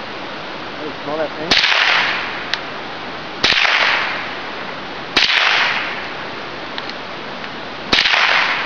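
Four .22LR rifle shots about two seconds apart, each a sharp crack followed by a long echo that slowly fades.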